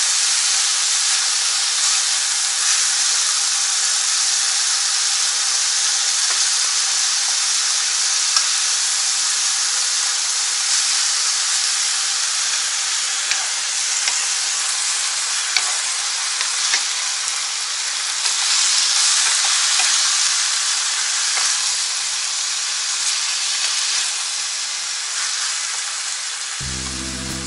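Bulgogi (sliced beef and onions) sizzling in a frying pan as it is stir-fried with chopsticks and a wooden spatula: a steady hiss with a few sharp ticks. Music comes in near the end.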